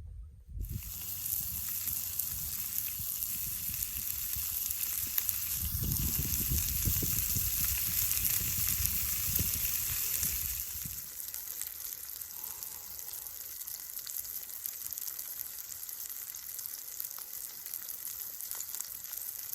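Sausages sizzling over a wood fire: a steady hiss that starts suddenly just after the beginning and eases a little past the middle, with a low rumble for several seconds in the middle.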